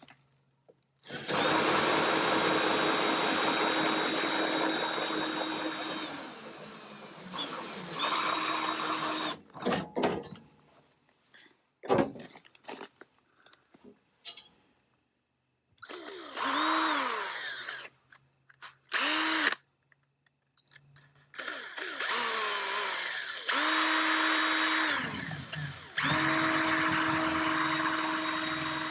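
Electric drill run in repeated bursts of one to five seconds, spinning up and winding down between them, while drilling a bolt hole.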